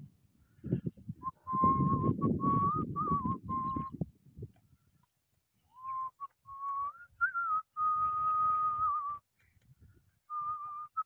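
A person whistling a slow tune of long held notes, breaking off for a couple of seconds partway through. Wind rumbles on the microphone during the first few seconds.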